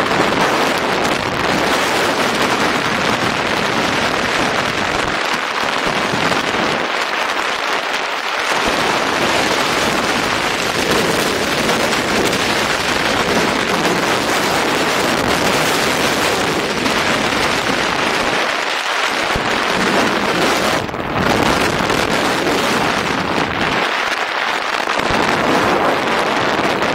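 Wind from the glider's flight buffeting a camera microphone mounted on a hang glider: a loud, steady rushing with crackle.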